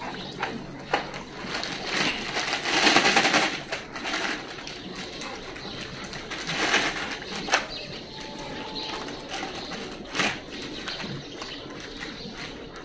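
A pack of dogs crowding and scrabbling while being hand-fed, with scattered clicks and scrapes and a louder rustling burst about three seconds in.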